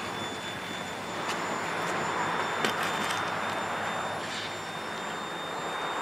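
Freight cars rolling past at close range: a steady rush and rumble of steel wheels on rail, with a few sharp clicks and clanks a little past halfway and a thin, steady high-pitched whine above it.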